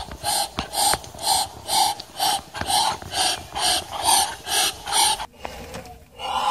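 Muscovy duck hissing in a steady rhythm, about two breathy hisses a second, stopping about five seconds in.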